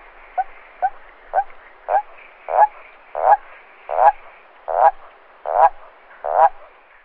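A toad croaking: a series of about ten calls, beginning as short clicks and growing into longer, louder, pulsing croaks, spaced a little over half a second apart and spreading out slightly as they lengthen.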